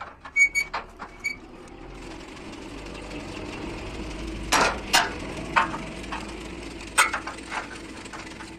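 A machine running with a steady hum that builds up after about two seconds, with sharp knocks on hard material: a pair about halfway through and a few more near the end.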